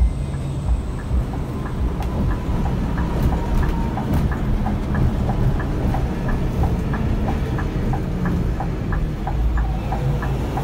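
Cabin noise of a Scania K360 IB coach on the move: a steady low engine and road rumble. From about two seconds in, a light regular ticking comes in at roughly three ticks a second.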